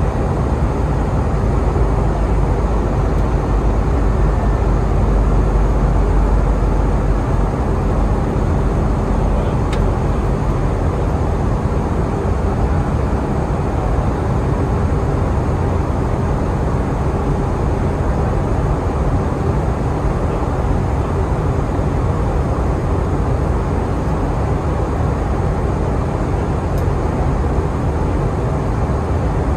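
Steady cabin noise of an Airbus A320 in flight, heard from inside the cabin: a dense rush of airflow and engine drone, heaviest in the low end. The deepest rumble eases slightly about seven seconds in.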